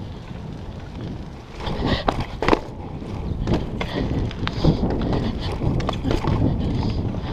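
A BMX bike rolling over pavement, close up: a steady low tyre and wind rumble, then from a little under two seconds in an irregular run of knocks and rattles as the tyres cross brick pavers and the bike's parts jolt.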